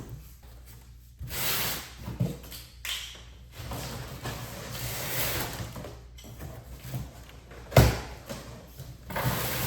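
Cardboard shipping box being opened and its packing handled: noisy swells of tearing, scraping and rustling, with one sharp knock about eight seconds in.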